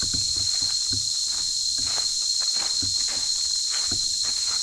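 Footsteps on a dry leaf-littered forest path, about two steps a second, under a steady high-pitched drone of insects.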